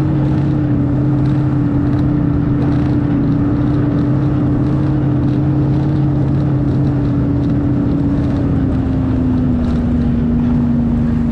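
Snowmobile engine running steadily at travelling speed, its pitch easing down a little over the last few seconds.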